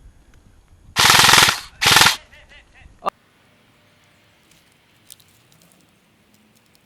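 Airsoft gun firing two short full-auto bursts in quick succession, a rapid rattle of shots, the first about half a second long and the second shorter. A single sharp click follows about three seconds in.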